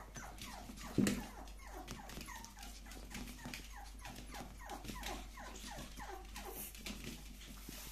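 Several young Pomeranian puppies, about seven weeks old, whining and whimpering in a run of short cries that each fall in pitch, several a second. A single thump about a second in.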